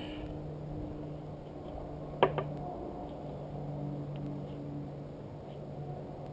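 Steady low hum with wind rumble on the microphone, broken by one sharp double click about two seconds in.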